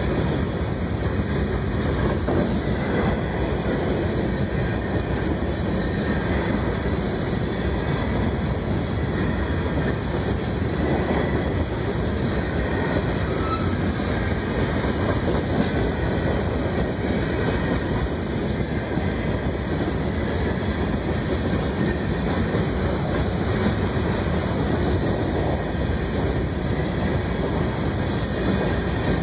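A freight train of covered hopper cars rolling past a grade crossing, the steel wheels making a steady rumble on the rails.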